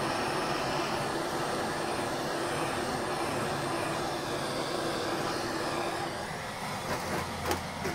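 Kitchen blowtorch flame hissing steadily as it caramelizes the crystal-sugar topping of a crema catalana. The hiss eases about six seconds in, and a few light knocks follow near the end.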